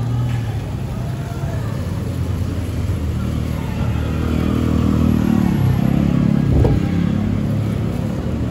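Street traffic: cars and motorcycles running past, their engines rising and falling. The loudest vehicle passes close by about six seconds in.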